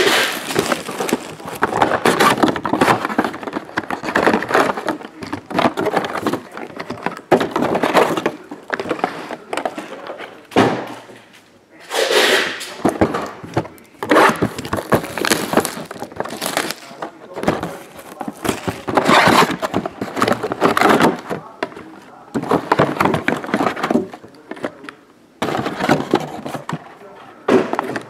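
Crinkling and tearing of plastic shrink wrap and handling of cardboard card boxes as two trading-card hobby boxes are unwrapped and their packs pulled out, in irregular bursts of rustling with a few knocks.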